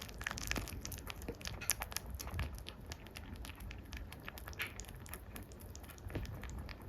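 Pet rabbit chewing food close to the microphone, a quick run of small moist clicks and crunches from its teeth, thinning out a little near the end.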